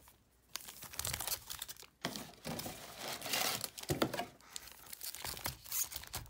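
Foil wrappers of Magic: The Gathering Core Set 2021 booster packs crinkling and rustling in repeated bursts as a handful of packs is pulled from the box and spread out by hand.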